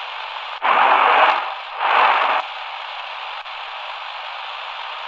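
Shortwave static and hiss from the XHDATA D-328 portable radio's speaker while the dial is tuned between stations. Two short, louder rushes of noise come about a second in and two seconds in, then it settles to a steady hiss.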